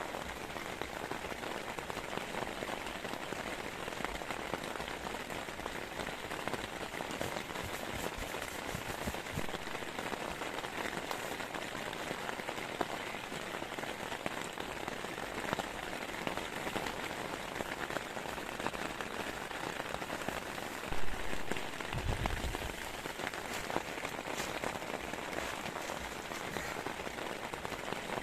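Heavy rain falling steadily, a dense hiss of many drops striking a surface. A single dull thump stands out about three-quarters of the way through.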